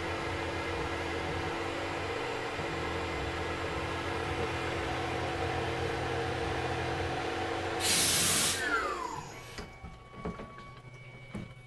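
Tormach PCNC 1100 CNC mill running, its spindle giving a steady hum and whine as the tool works an aluminum part. About eight seconds in comes a short loud hiss of spray, then the spindle winds down in a falling whine and the machine goes quiet apart from a few light clicks.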